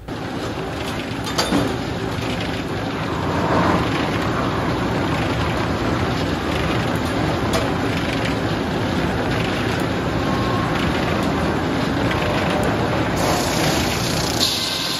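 Sawmill's large circular head saw spinning free with the mill machinery running, a steady mechanical noise with a single click about a second and a half in. Near the end a brighter hiss joins the sound.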